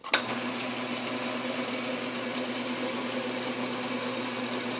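South Bend 9-inch workshop lathe switched on right at the start and then running steadily with an even hum, its spindle turning a drill chuck that drives a 3/16-inch bit into an aluminum pulley.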